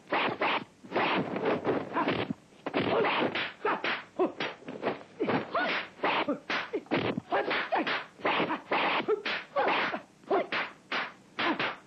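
Dubbed kung fu fight sound effects: a fast run of punch and kick whacks and swishes, several a second, mixed with the fighters' short shouts.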